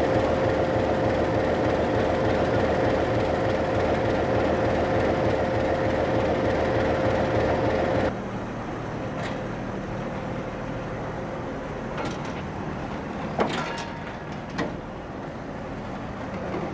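Freight train noise: a loud, steady rumble with a constant whine. Then, about halfway, a quieter steady hum of a diesel locomotive at a distance, broken by a couple of sharp metallic clanks.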